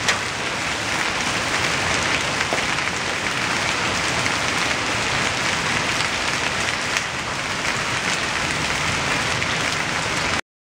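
Hailstorm downpour of rain and hail pelting the ground, a dense, steady patter with scattered sharper ticks. It cuts off suddenly about ten seconds in.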